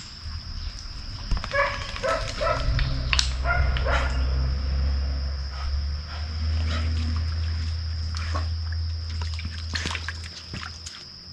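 A Labrador retriever whining and yipping in a quick run of short calls, about one to four seconds in, with the dog excited. Under it is a steady low rumble.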